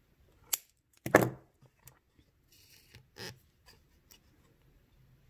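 A glass seed bead being crushed off the thread with pliers: a sharp snap about half a second in, then a louder crunch just after a second in, followed by a few small clicks and another short crackle about three seconds in.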